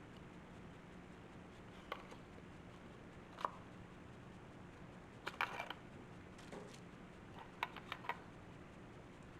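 Small scattered clicks and scrapes of hand tools working the glued LED circuit board loose from a side mirror's turn-signal housing: a few single clicks, a quick cluster about five seconds in, and three more near the end, over a faint steady hum.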